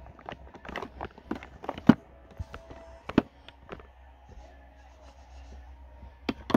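Scattered knocks, taps and rustles from someone moving close beside the recording phone, with one sharp knock about two seconds in and a sparser spell past the middle.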